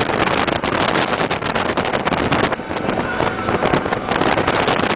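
Wind buffeting the microphone on the open deck of a speedboat running at speed, in dense, gusty rushes over the low rumble of the boat's engine and water.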